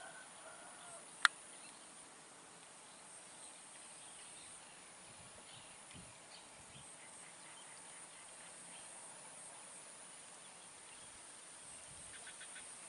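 Faint, steady, high-pitched buzz of insects, with one sharp click about a second in.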